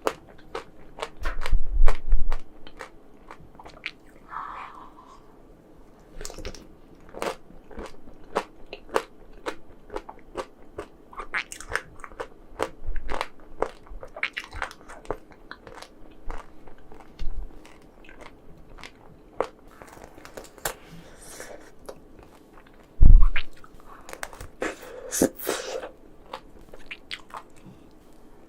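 Close-miked eating of chocolate ice cream: many crisp bites and crunches of the frozen chocolate, with chewing between them. Two loud low thumps, about two seconds in and near the end, stand out above the crunching.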